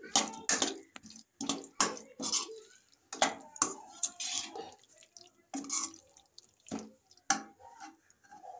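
Slotted metal spoon stirring moist cooked vegetables in a metal kadhai: an irregular run of scrapes and taps against the pan, a few a second, with a short lull about halfway through.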